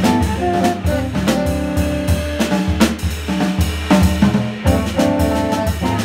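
Live jazz band playing: a busy drum kit with bass drum, snare and rimshot hits over a bass line, with held melodic notes from the saxophone and guitar.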